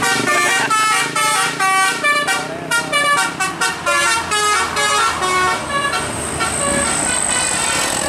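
Bus telolet basuri horn, a multi-tone musical air horn, playing a rapid tune of short notes, several a second, that dies away about six seconds in.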